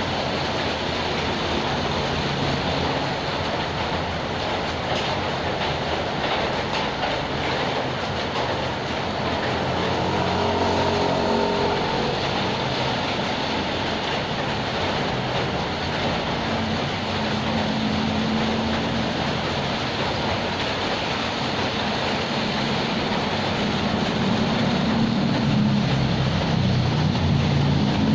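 Steady rain falling. A low engine hum comes through about ten seconds in, with its pitch dropping, and swells again near the end.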